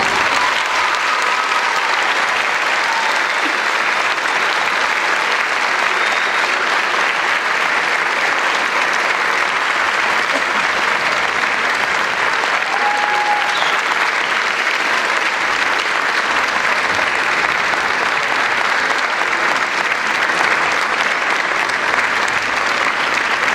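Theatre audience applauding, a dense, steady clapping that holds at an even level.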